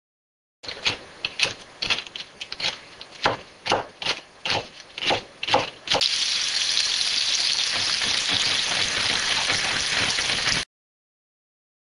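A kitchen knife chopping cabbage on a cutting board, with sharp strokes about three a second. About six seconds in it gives way to the steady sizzle of an egg frying in oil in a pan, which stops abruptly shortly before the end.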